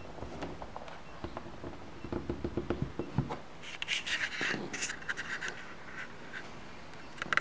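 Scratching and rubbing handling noise with many small clicks, turning into a higher, hissing scratch about four seconds in.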